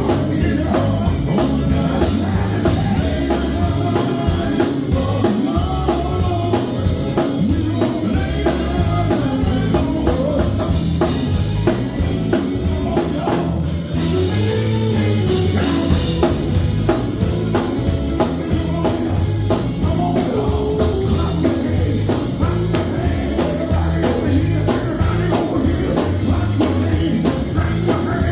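A live gospel group performing: drum kit and electric guitar backing singing, loud and continuous.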